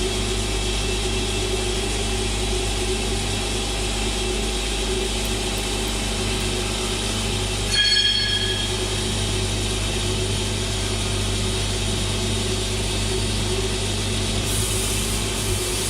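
CNC machine running steadily while machining polyethylene, a constant mechanical drone. About halfway through it gives a brief high-pitched squeal.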